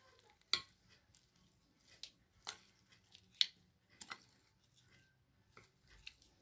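Kitchen utensils clicking and tapping: about seven sharp, irregularly spaced knocks, the loudest about half a second in and around three and a half seconds in.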